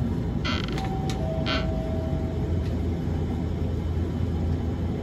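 Cabin sound inside a Hiroshima Electric Railway 1000-series Green mover LEX low-floor tram: a steady low hum, with two short hisses about half a second and a second and a half in and a faint held tone between them.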